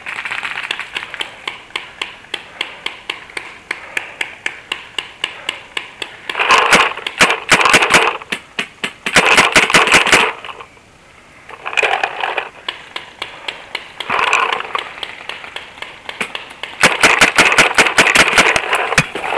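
Rapid fire from paintball or airsoft guns in five bursts of about half a second to two seconds each, over a steady ticking of about three clicks a second.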